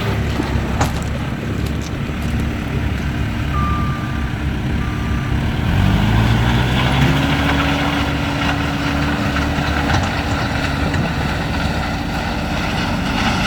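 Backhoe diesel engine running, revving up about six seconds in, holding the higher speed for a few seconds, then settling back. Two short high beeps sound shortly before the rev.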